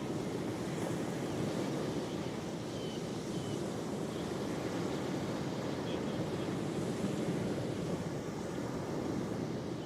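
Ocean surf: a steady, continuous wash of waves on the shore, with no single break standing out.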